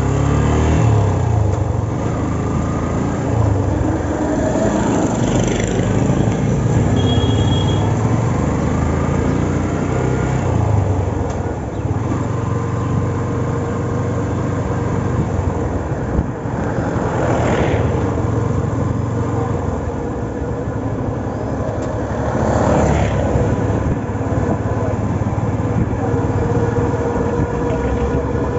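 Yamaha Fazer FI V2's single-cylinder engine running steadily, with other vehicles passing twice, each swelling up and fading away.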